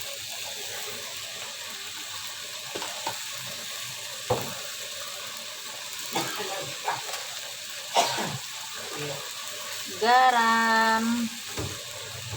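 Food sizzling steadily in a pan on the stove, with a few sharp knocks of a spoon against the pan as it is stirred and seasoned.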